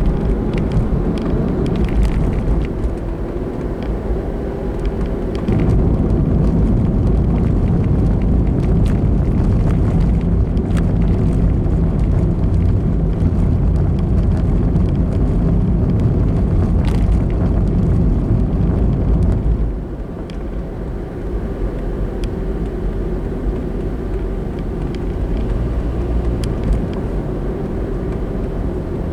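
Car on the move: steady engine and road noise. It grows louder about five seconds in and drops back about two-thirds of the way through.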